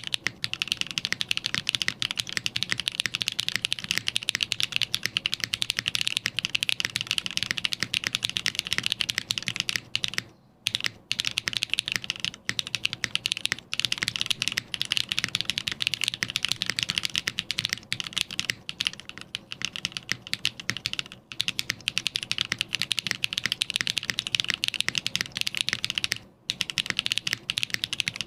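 Fast, continuous typing on a custom mechanical keyboard: lubed KTT Rose linear switches under GMK keycaps on an FR4 plate in a silicone tray-mount case, with no case ping. The typing stops briefly about a third of the way in and again near the end.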